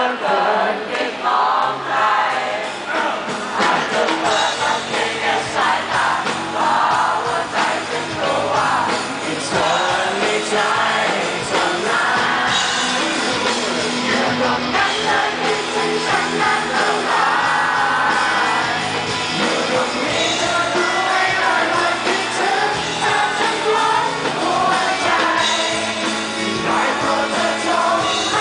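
Live band playing a song through the stage PA: a male singer over acoustic and electric guitars, heard from within the audience with some crowd noise.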